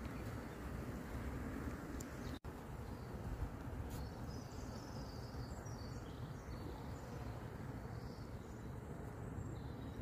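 Steady outdoor background noise, mostly a low rumble with a soft hiss, with faint high bird chirps from about four to nine seconds in. The sound drops out for an instant about two and a half seconds in.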